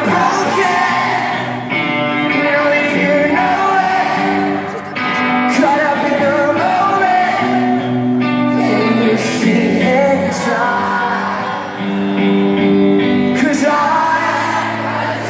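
Live pop-rock band performing a song, with sung vocals over the band throughout.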